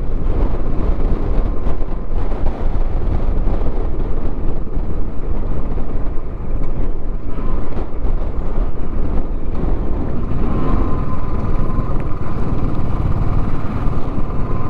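Vehicle driving along a road: steady, loud road and wind noise heavy in the low end. A faint steady whine joins it about two-thirds of the way through.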